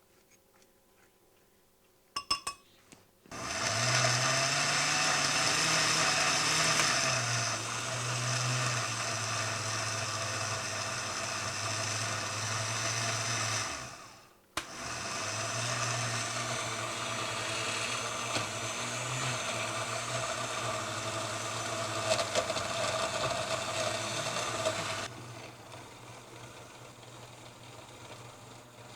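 Countertop blender puréeing a chunky mix of peppers, onions and herbs for Haitian spice seasoning. After a few clinks, it runs steadily for about ten seconds, stops for a moment, then runs for about ten seconds more.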